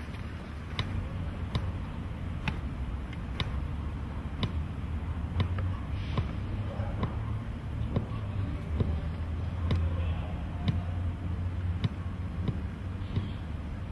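A soccer ball being juggled on the foot: a dull thud of boot on ball about once a second, in an even rhythm, over a low steady rumble.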